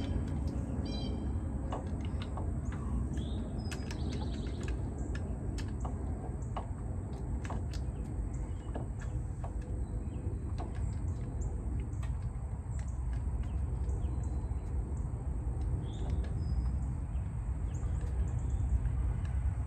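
Scattered small clicks and taps of hand work on the mower's starter mounting, over a steady low rumble, with a few faint bird chirps.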